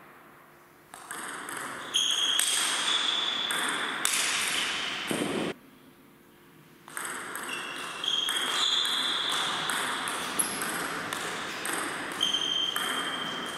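Table tennis rallies: the ball clicking in quick succession off the rackets and the table, ringing in a large hall. Play stops for about a second and a half in the middle, then another rally begins.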